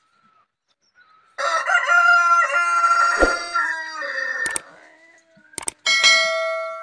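A rooster crowing once, a long cock-a-doodle-doo of about three seconds starting just over a second in. Near the end come a few sharp clicks and a bell-like ding that rings on and fades.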